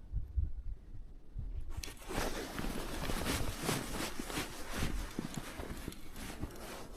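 Irregular knocks and scuffing on the ice, starting about a second and a half in after a quiet start.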